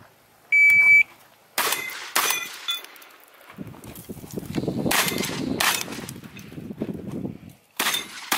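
A competition shot timer gives one steady high beep to start the stage, then a shotgun fires twice, about half a second apart, each blast followed by a brief ringing. After a few seconds of lower noise, more shotgun blasts come close together near the end.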